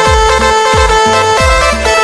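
Electronic dance music with a steady kick-drum beat, about two thumps a second, under a held synth melody.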